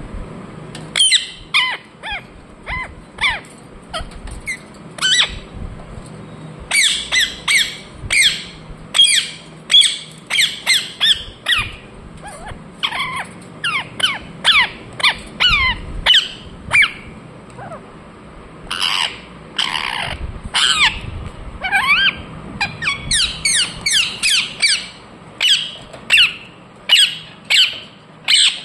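Ringneck parrot calling: runs of short, sharp chirps, each falling steeply in pitch, with brief pauses between the runs.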